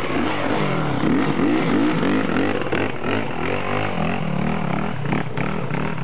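Off-road motorcycle engine revving up and down as it passes close by, with quad bike engines running behind it.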